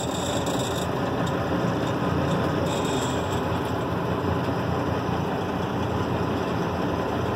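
Semi-truck's diesel engine idling steadily, heard from inside the cab.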